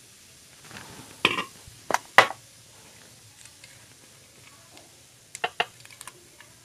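Tall aluminium beer cans being handled: a few sharp knocks and clinks in the first half as the cans are moved and set down, then small clicks near the end as a fingernail works at a can's pull tab.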